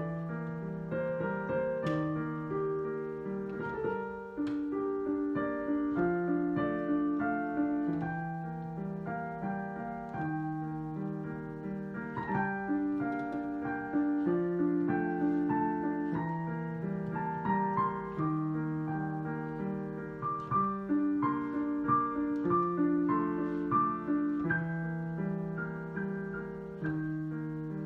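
Solo piano playing: a repeating accompaniment figure in the lower notes under a melody in the higher notes.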